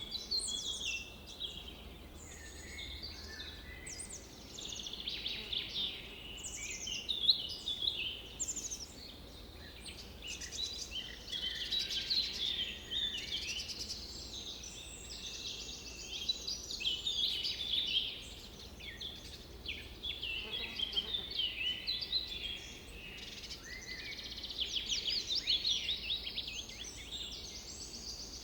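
Several songbirds singing and calling over one another, with quick chirps and rapid trills, one after another with few pauses, over a faint steady low background rumble.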